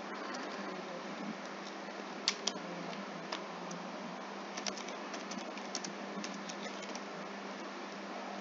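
Typing on a computer keyboard: irregular keystroke clicks, a few sharper than the rest, over a steady background hiss and faint hum.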